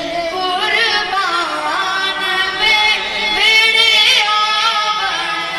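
A boy's voice singing a naat unaccompanied, in long held notes with quick wavering ornaments, rising to its loudest in a high phrase a little past the middle.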